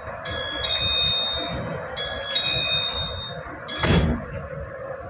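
Electronic warning chime of a commuter train with its doors open: a high two-note tone sounded twice over the steady hum of the carriage, followed by a sharp knock about four seconds in.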